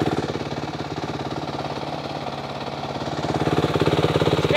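Dirt bike engine idling just after a kick start, with steady, even firing pulses. It quietens a little through the middle and grows louder again near the end.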